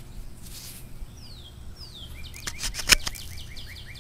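A songbird calling: two short downward-sliding whistles, then a quick run of short chirps, about six a second. A sharp click near three seconds in is the loudest sound.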